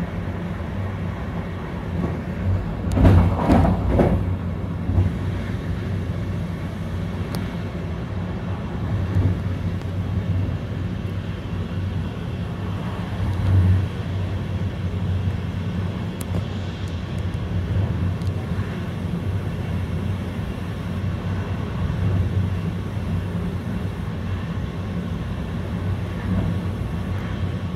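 Running noise heard inside an InterCity passenger coach: a steady low rumble of wheels on rail with a hum. A brief louder rush comes about three seconds in, and a smaller swell comes about halfway through.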